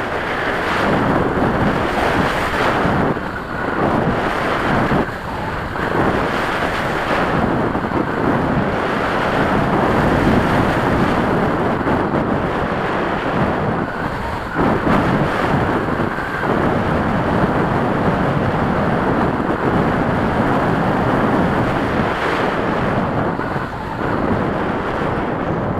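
Wind rushing and buffeting over the microphone of a camera mounted on a flying radio-controlled model plane, a loud rush that surges and dips every second or so.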